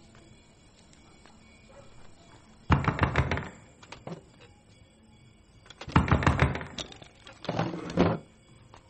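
Someone banging on a door: three bouts of quick, heavy knocks a few seconds apart.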